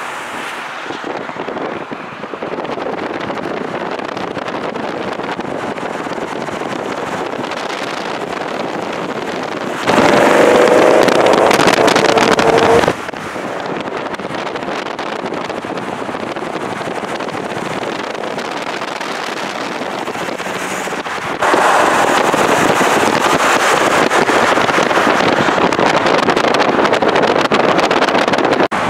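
Wind rushing over the microphone and road noise from a car moving at highway speed, filmed out of an open window. About ten seconds in, a louder stretch of roughly three seconds carries a steady humming tone. The rushing grows louder again for the last third.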